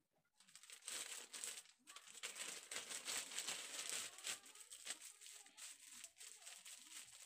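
Plastic packaging of a clip-on lavalier microphone crinkling and rustling as it is handled and opened, an irregular crackle that starts about half a second in.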